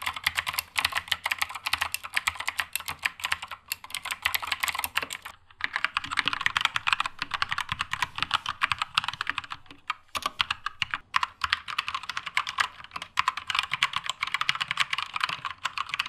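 Fast typing on a Keychron K2 mechanical keyboard, demonstrating three Gateron switch types in turn: clicky Blue switches first, linear Red switches from about five seconds in, and tactile Brown switches from about ten seconds in.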